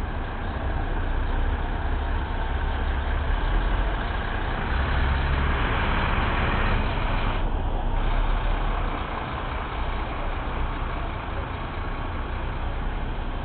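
Heavy truck diesel engine running at low revs, close by, as a DAF CF tipper truck rolls slowly past; a steady rumble.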